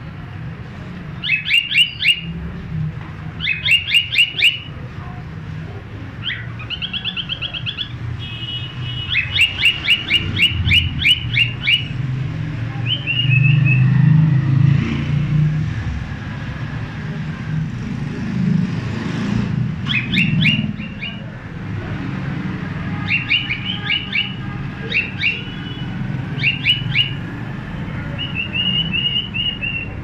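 Cockatiels chirping: bursts of quick, repeated short chirps, with a few short held whistled notes between them, over a steady low background rumble.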